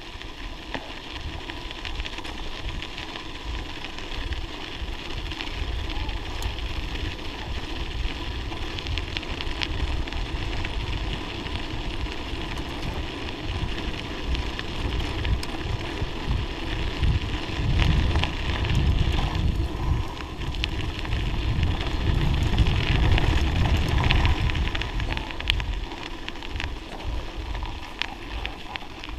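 Bicycle tyres rolling and crackling over packed snow and ice on a downhill forest road, with wind rumbling on the microphone, louder for several seconds past the middle as speed builds.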